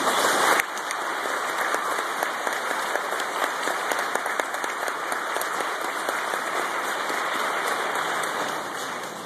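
Large audience applauding, many hands clapping in a steady patter. It is loudest in the first half second and eases off near the end.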